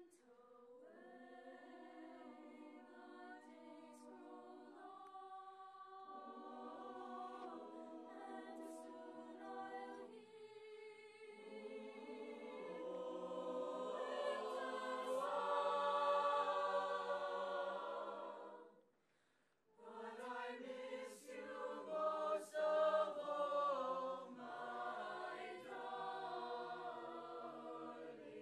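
Mixed-voice high school chamber choir singing unaccompanied in close harmony, building to a loud held chord, breaking off together for about a second two-thirds of the way through, then singing on.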